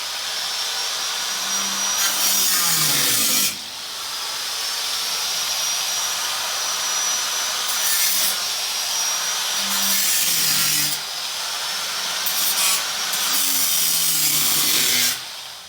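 Power tool cutting through the rusty sheet-metal floor pan of a 1957 Nash Metropolitan, running steadily with a high whine. It eases off briefly about three and a half seconds in and again around eleven seconds, and stops near the end.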